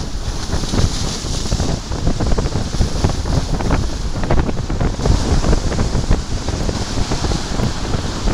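Strong gusty wind of a norte gale buffeting the microphone, over the rushing hiss of heavy surf breaking on a rough sea.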